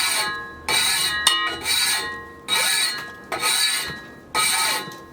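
Hand file rasping across the steel teeth of a homemade ice saw in slow, even strokes, about one a second, each stroke setting the blade ringing. It is sharpening the cutting edge at a held bevel angle.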